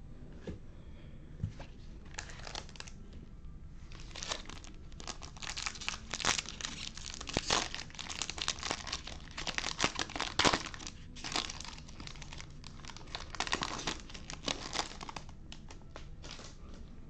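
Foil wrapper of a Topps Chrome baseball card pack crinkling and tearing as gloved hands rip it open. The crackling starts lightly, is busiest from about four seconds in, and dies down near the end.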